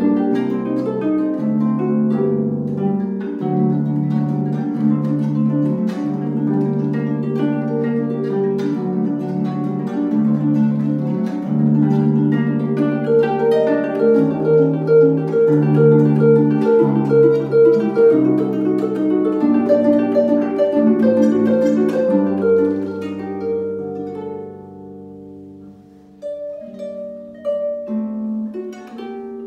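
Concert harp played solo: a run of plucked notes over low bass notes, with a ringing, sustained tone. About 24 seconds in the playing thins and fades almost away, then quieter notes resume.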